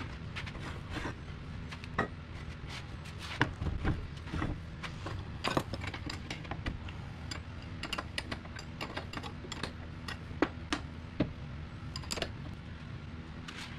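Tools and parts being handled on a workbench: scattered clicks, taps and knocks at irregular intervals over a steady low hum.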